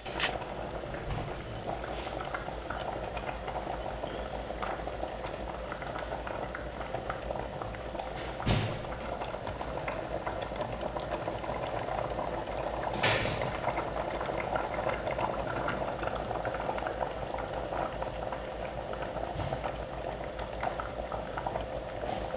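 A pot of wild rice boiling on the stove: a steady bubbling, with two light knocks about eight and thirteen seconds in.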